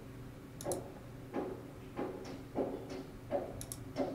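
A run of light clicks at a computer, about eight of them spaced unevenly over four seconds, made while the page is refreshed again and again.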